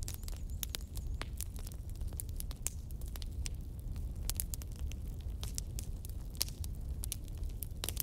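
Bonfire crackling: irregular sharp pops and snaps from burning wood over a steady low rumble of the flames.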